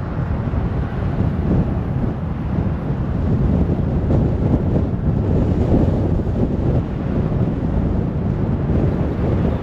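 Car driving on the road: a steady low rumble of road and wind noise, with no sudden events.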